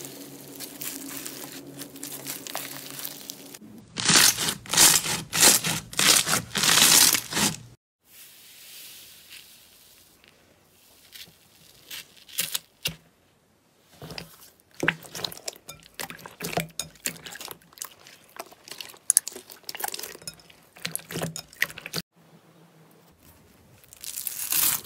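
Slime handled by hand. Crunchy bead slime crackles loudly for about four seconds, then soft slime is pressed with scattered small pops and clicks, and foam-bead slime crunches near the end.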